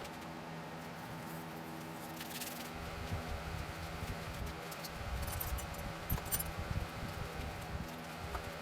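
Light handling noises: scattered small clinks and rattles, busiest about two-thirds of the way through, over a steady low hum.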